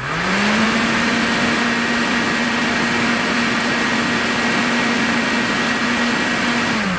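Small electric fan or blower motor switched on, spinning up to a steady speed with a loud rush of air, then winding down near the end.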